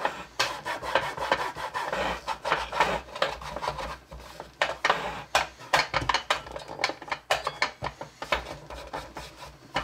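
Paper towel wiping and scrubbing the plastic hopper base of a vintage Marx Cat's Eye marble game: a run of quick, scratchy rubbing strokes.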